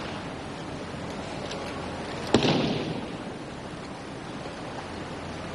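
One sharp thud about two seconds in, fading quickly, over a steady hiss: an aikido partner's breakfall slapping the tatami mat as he is thrown.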